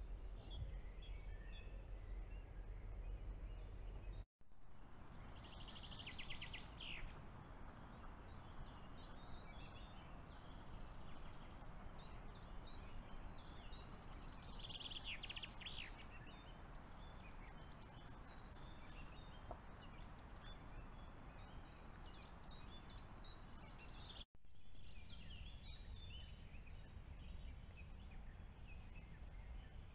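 Faint woodland ambience picked up by a trail camera's microphone: a steady hiss with scattered distant songbird chirps and a few short song phrases. The sound cuts out completely for an instant twice, where one camera clip ends and the next begins.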